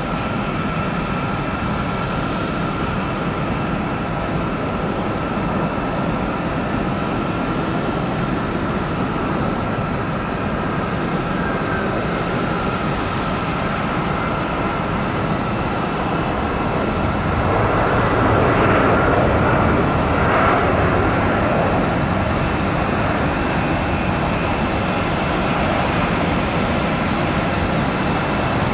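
Airbus A320 jet engines with a steady whine over a steady rush, as the airliner lands and rolls out along the runway. A louder burst of engine noise comes about two-thirds of the way through.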